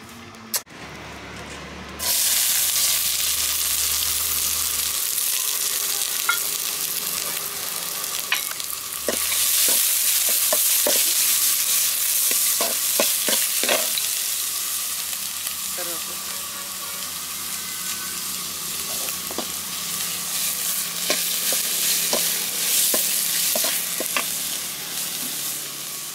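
Chopped onions tipped into hot oil in a metal pot start sizzling loudly all at once about two seconds in, then keep frying steadily with curry leaves. A steel ladle stirring clinks and scrapes against the pot now and then.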